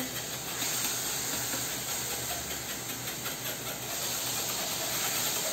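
A spoon rubbing egg yolk through a fine mesh sieve: a steady scratchy hiss with faint repeated scrapes.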